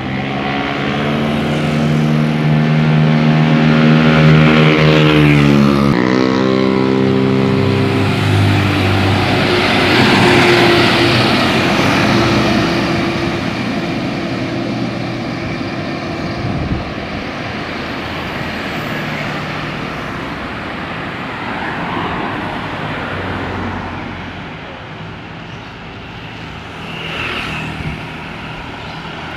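Tour bus's 'basuri telolet' musical air horn sounding a held multi-note chord, which changes to a different chord about six seconds in and stops about eight seconds in. Engine and road noise of the bus follow as it passes.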